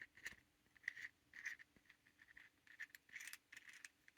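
Faint metal clicks and scrapes as a small tool works the retaining ring out of the core of a Gerda HSS 531Z disc-detainer padlock, about ten separate small ticks spread over four seconds.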